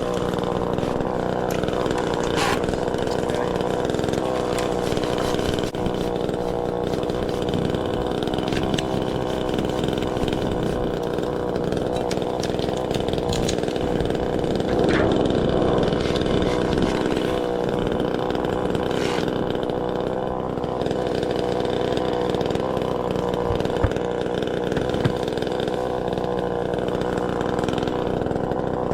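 Chainsaw running steadily at high speed, with a brief swell about halfway through.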